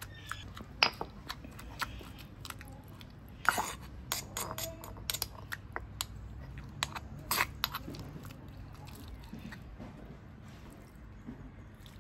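Stone pestle pounding fermented soybeans, ginger and garlic in a granite mortar: irregular dull knocks with soft crushing, a few strikes much sharper and louder than the rest.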